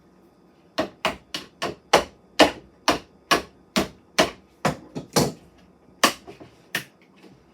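About fifteen sharp knocks in quick, uneven succession, two to three a second: a new hubcap being knocked onto a toy fire truck's wheel.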